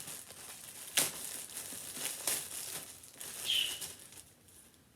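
Plastic packaging crinkling and rustling as clothing is handled, with sharp crackles about one and two seconds in and a brief squeak before the rustling dies down.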